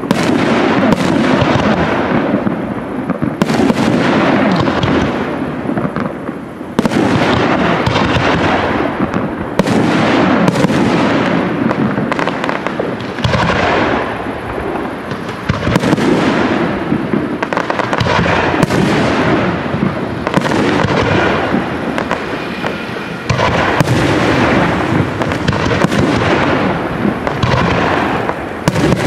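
Large aerial fireworks display: shells bursting in quick succession, a bang about every second, each trailing off in a rolling echo.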